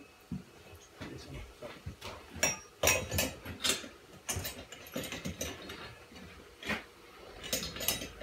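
Hand ratchet clicking in short, irregular runs, with metal clinks, as the bolts on a satellite dish's mounting bracket are tightened.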